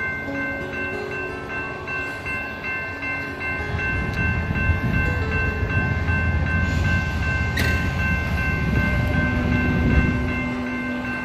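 Southern Pacific 4449, a 4-8-4 steam locomotive, approaching with a low rumble that grows from about four seconds in and peaks near the end. Grade-crossing warning bells ring steadily over it, and there is one sharp crack about eight seconds in.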